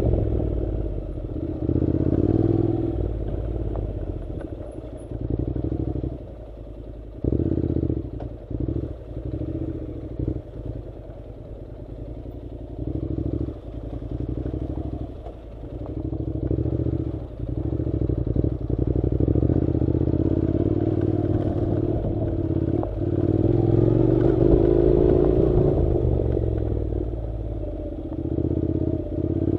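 Honda NC700 parallel-twin motorcycle engine running on a dirt track, its note rising and falling as the throttle is opened and closed, with short knocks and clatter from the bike going over rough ground.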